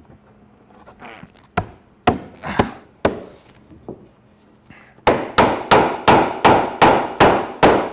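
Hammer striking wood on the boat's frame: a few separate blows, then a quick, regular run of about nine blows, roughly three a second.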